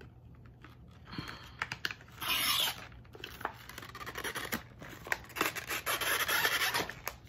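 Packaging of a smartphone camera lens kit being handled and opened: rustling and scraping with small clicks, in a short loud burst about two seconds in and a longer stretch from about four seconds to near the end.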